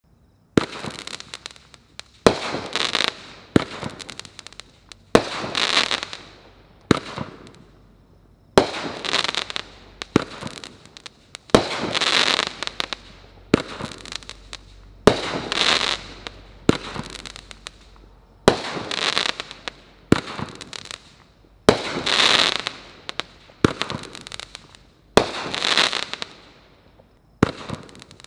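A 12-shot, 200-gram consumer multi-shot fireworks cake firing its shots one after another, about one every one and a half to two seconds. Each shot is a sharp launch report followed by a louder, noisy burst lasting about a second.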